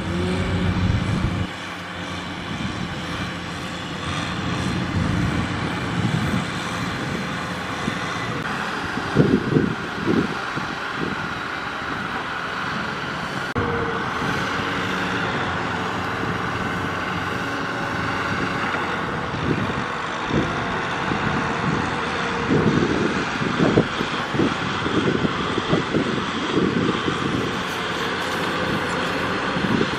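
Diesel farm machinery running steadily: a Kubota tractor's engine with a rice combine harvester working close by, with uneven low rumbling in the second half.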